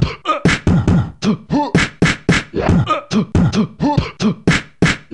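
A person making rapid rhythmic vocal sound effects with the mouth, beatbox-style: short sharp bursts about three a second, many with a quick bending pitched tone.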